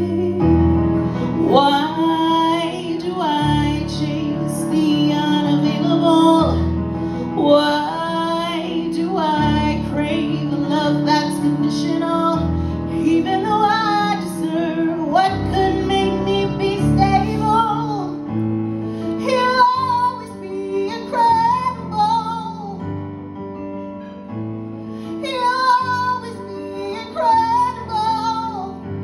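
A woman singing live to electric keyboard accompaniment: a sung melody over sustained keyboard chords and bass notes, easing somewhat quieter toward the end.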